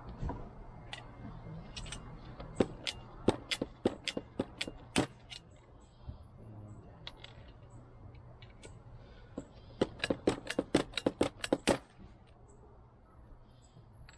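Hand pop-rivet gun clicking as it is squeezed over and over to set pop rivets, in two runs of quick sharp clicks, one starting about two and a half seconds in and one about ten seconds in.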